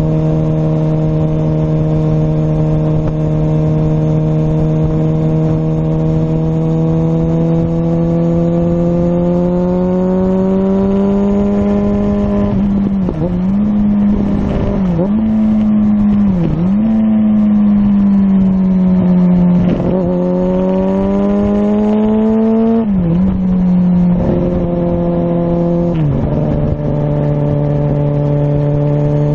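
2005 Kawasaki ZX-6R inline-four breathing through a Muzzys slip-on exhaust, cruising with a steady engine note. The pitch slowly climbs for the first dozen seconds, then dips and recovers several times through the middle as the throttle is rolled off and on, and settles back to a lower steady note near the end.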